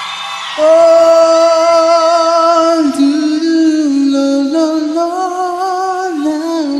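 Christian pop music: a slow melody of long held notes, with a wavering vibrato on the notes near the end.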